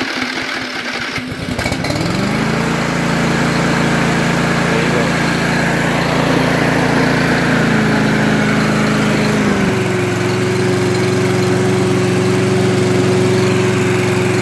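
Victa 750iS lawn mower's 163cc overhead-valve engine just after a key start, picking up speed about two seconds in and then running steadily at full speed. Its pitch drops slightly about ten seconds in and holds there.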